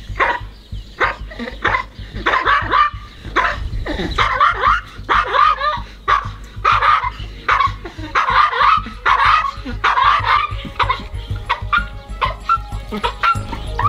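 Maltese bichon barking in rapid, repeated yaps at a large dog, the sign of its fearful, defensive aggression toward other dogs, wavering between warning off and attacking.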